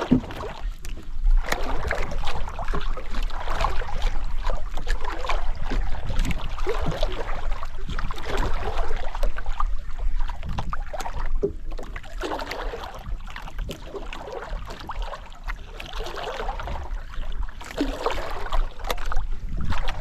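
Wind on the microphone and water slapping against a small boat's hull, in uneven surges over a steady low rumble.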